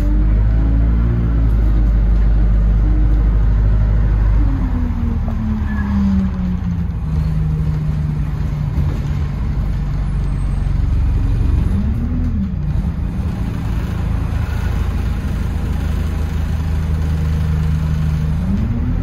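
Single-deck bus's drivetrain heard from inside the passenger saloon while driving: a heavy low rumble with a whine that drops in pitch about five seconds in, holds steady, briefly rises and falls around twelve seconds in, and climbs again near the end as the bus changes speed.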